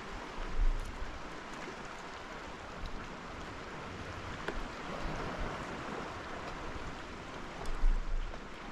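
Sea water lapping gently against a fishing kayak's hull, a steady wash, with a couple of low bumps, one about half a second in and one near the end.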